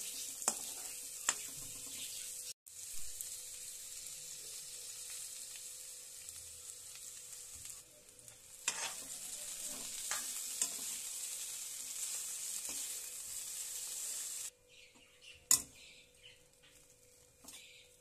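Peanuts, green peas, onion and chillies, then poha (flattened rice), frying in a little oil in a pan while a spatula stirs them: a steady sizzle with scraping and a few sharp knocks of the spatula against the pan. Near the end the sizzle cuts off suddenly, leaving faint stirring and one more knock.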